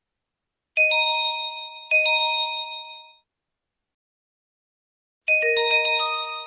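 Electronic notification chimes of the P2P Earthquake Information software. First come two identical bell-like strikes about a second apart, each fading out. After a pause, about five seconds in, a different alert starts: a quick run of bell-like notes.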